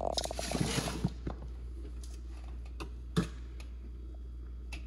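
A few scattered light clicks and taps over a low steady hum, with a brief rustle near the start.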